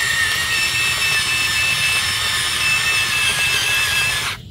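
Huina 580 RC excavator's electric motors whining steadily as the boom and bucket lift a log, with a faint broken higher tone above the whine. The whine cuts off suddenly near the end.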